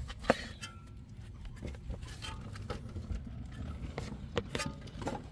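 A few light, scattered clicks and knocks from hands and tools working on a car's front suspension, over a faint low rumble.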